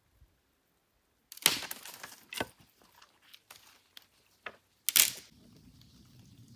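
Dry dead branches being snapped by hand, with crackling of twigs and leaves between the breaks. There are sharp cracks about a second and a half and two and a half seconds in, and the loudest snap comes about five seconds in.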